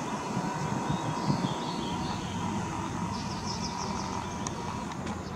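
Outdoor background: a steady low rumble with small birds chirping in short quick runs, and a faint steady tone underneath.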